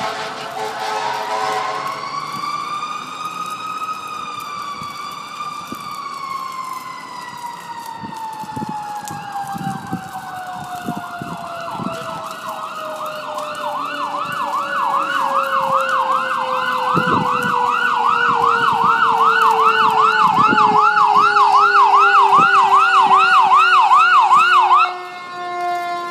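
Fire truck sirens: one wails slowly up and down, then switches to a fast yelp about two or three cycles a second that grows louder and cuts off near the end, while a second siren's tone slides steadily lower throughout.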